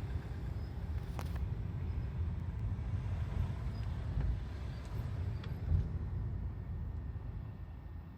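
2009 Volkswagen Golf Mk6 1.4 TSI (CAVD) engine running at low rpm while cold: a steady low rumble with a few faint sharp clicks. This is the cold low-rpm knocking that the owner suspects could be piston slap or a valve lifter.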